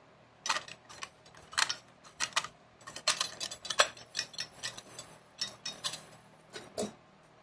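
Metal transmission parts clinking and clicking as they are handled and fitted into a 4L60E input drum, in an irregular run of sharp knocks with a heavier one near the end.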